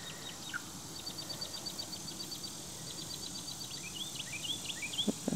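Faint outdoor chirping: a fast, even series of high ticks for a few seconds, then a string of short rising chirps from a small bird near the end.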